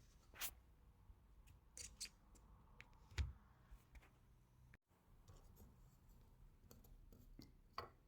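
Faint scattered clicks and light taps, with one louder knock about three seconds in, over a low hum.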